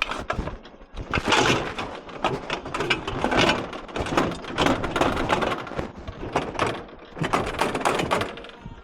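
Aluminium chair frames knocking and clattering as they are handled and stacked onto a load of scrap metal: a run of irregular knocks.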